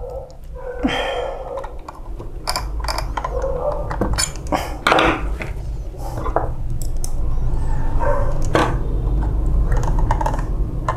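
Repeated clicks and knocks of the plastic and metal parts of a photocopier's waste toner unit being handled, fitted together and screwed up, over a steady low hum.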